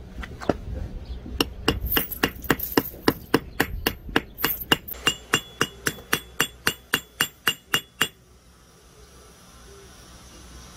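Rapid light hammer taps on metal pins, about four a second, each with a bright ring, stopping about eight seconds in: the pins holding a knife's handle scales being peened over against a steel block.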